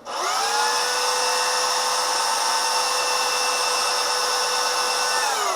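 Power sander spinning up to a steady high whine for about five seconds, then winding down with falling pitch near the end, sanding a damaged spot on a body panel.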